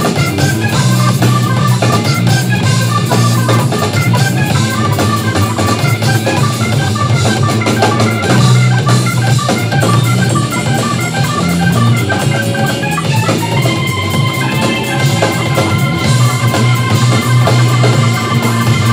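Live funk band playing: drum kit, electric bass, electric guitar and stage keyboard with an organ sound. About two-thirds through, a busy run of short high notes gives way to long held notes.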